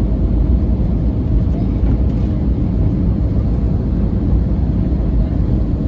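Airliner cabin noise: a steady low rumble of jet engines and airflow heard from inside the cabin.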